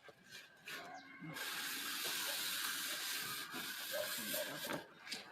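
Packaging being handled and pulled apart: a continuous rustling, scraping rub that starts about a second in and dies down shortly before the end.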